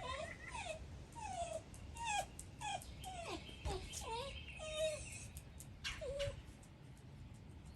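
A basenji whining: a run of short, high whimpers that each slide down in pitch, about two a second, stopping about six seconds in.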